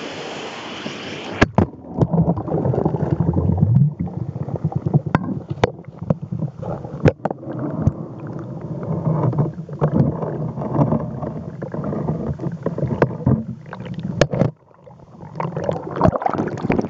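River current swirling through a deep pothole in the rock, heard from a camera pushed underwater into the hole: a muffled churning rumble with frequent sharp clicks and knocks. About a second and a half in, the sound turns muffled as the camera goes under.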